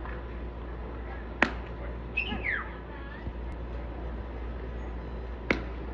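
Two baseball pitches popping into the catcher's mitt: two sharp cracks about four seconds apart. Between them comes a short high call that falls in pitch.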